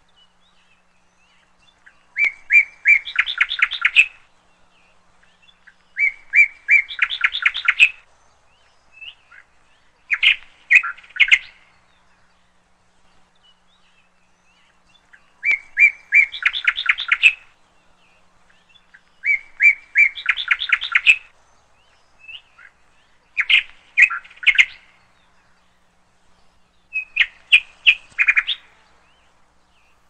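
A bird singing a short phrase of quick, high notes, repeated seven times with a pause of a couple of seconds between phrases.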